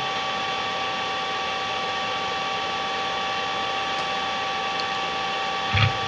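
Steady hiss with two steady high tones running through it, the soundtrack of the fails compilation playing through the monitor's speakers. One short dull thump near the end.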